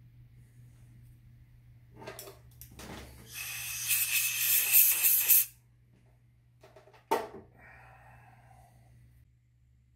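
Compressed-air blowgun blowing the chips out of a freshly bored brake cylinder in the lathe chuck: a loud hiss of about two seconds midway, over a low steady hum, with a sharp click about seven seconds in.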